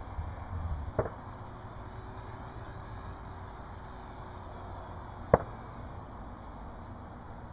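Handling noise on a hand-held camera being swung around: a low rumble with two sharp knocks, one about a second in and a louder one about five seconds in.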